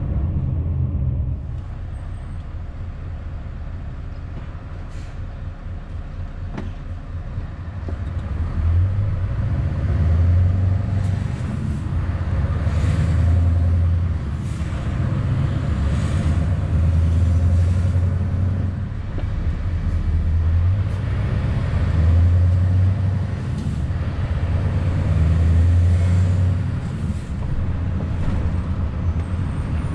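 Scania S650's V8 diesel engine running as the truck moves through slow traffic, its low drone swelling louder and easing off again about five times in the second half.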